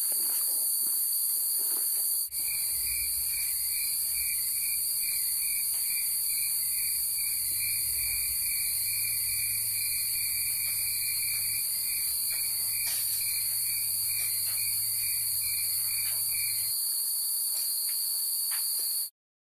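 Insects droning steadily at a high pitch, with a chirp pulsing a few times a second from about two seconds in until near the end. Everything cuts off just before the end.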